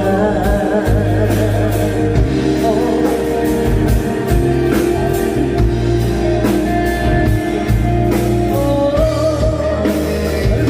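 Live band playing a Thai pop-rock song: drums keep a steady beat under bass and a held melody line, in a passage between sung lines.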